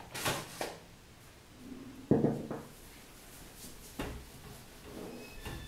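A few handling knocks and thumps, the loudest about two seconds in, then a whiteboard duster rubbing across the board.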